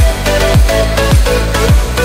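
Electronic music with a steady beat: a kick drum that drops in pitch lands about twice a second over a sustained bass line and held synth notes.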